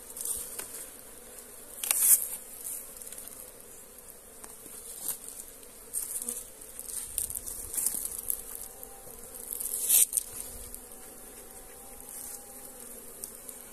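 Honey bees buzzing steadily around the combs of an opened hollow-log hive. A few sharp knocks and crackles come through the hum, the loudest about two seconds in and about ten seconds in.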